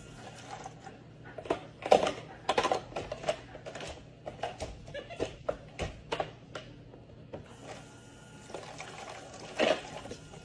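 Plastic toy dishes clattering and knocking in a plastic toy sink as a capuchin monkey handles them, with irregular knocks, loudest about two seconds in and near the end; water trickles from the toy faucet.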